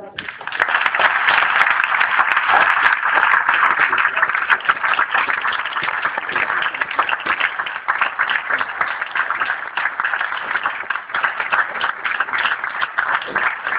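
Audience applauding, breaking out suddenly right at the start and carrying on steadily.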